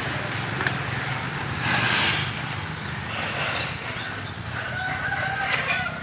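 A rooster crowing: one long held call near the end, over a low steady hum.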